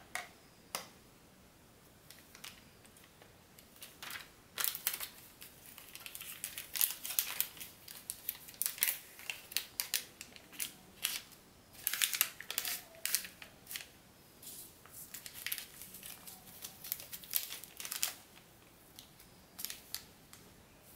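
Packaging being handled, crinkling and rustling with sharp clicks in irregular bursts, busiest from about four seconds in until near the end.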